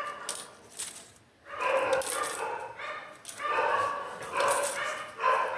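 Pet dogs barking in a run of drawn-out barks, with a short break about a second in. They are barking at another dog that has come by.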